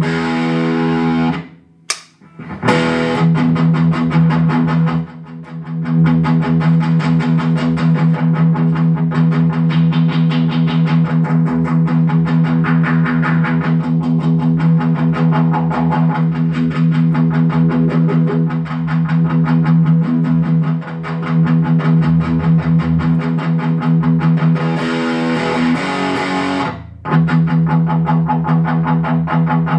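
Electric guitar played through a Boss BD-2 Blues Driver overdrive pedal, shaped by a Boss GE-7 graphic equalizer. A driven, strummed riff repeats over held low notes, with a short break near the start and another near the end.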